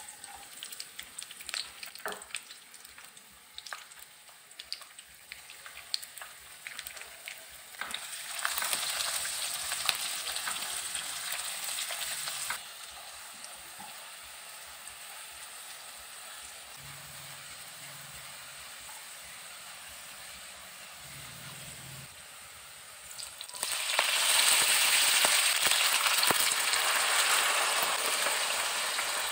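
Sliced garlic sizzling in olive oil in a nonstick pan over low heat, with scattered crackling pops and stirring early on. About six seconds before the end the sizzle turns much louder as cooked spaghetti and pasta water go into the hot oil.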